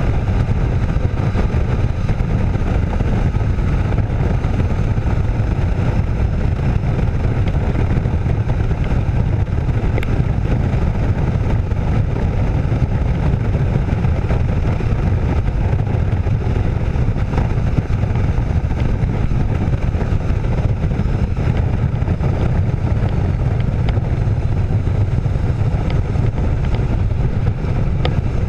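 A Kawasaki motorcycle riding along at steady speed: a steady rumble of wind buffeting the bike-mounted camera's microphone, mixed with the engine.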